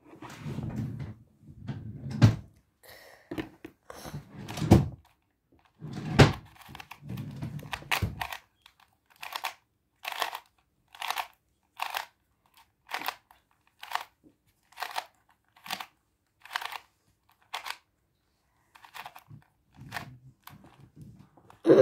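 Plastic Rubik's cube being turned by hand, its layers clicking and clacking. There are a few heavier thumps in the first eight seconds, then a steady run of about one turn a second.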